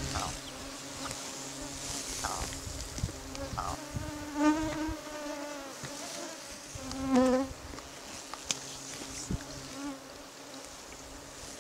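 Steady buzzing of flying insects, mosquitoes and flies, around the microphone. A ptarmigan hen gives two short calls, about four and a half and seven seconds in.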